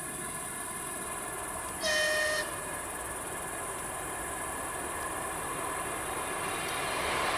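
ET2 electric multiple unit approaching the station gives one short horn blast about two seconds in, as a warning to a man crossing the tracks in front of it. Towards the end, the noise of the oncoming train on the rails grows louder.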